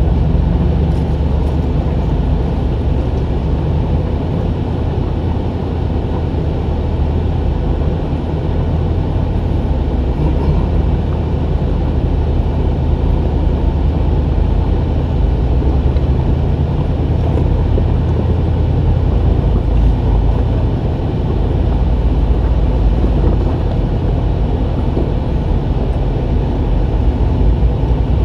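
Jeep engine running steadily on an off-road trail, a continuous deep rumble that holds the same pace throughout.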